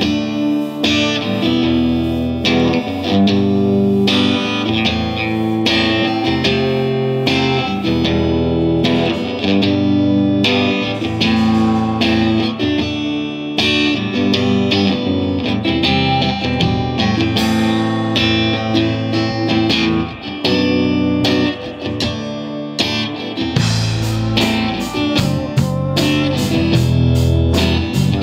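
Live rock band playing an instrumental passage, electric guitar to the fore over bass and drums, with the low end and drumming growing heavier about 23 seconds in.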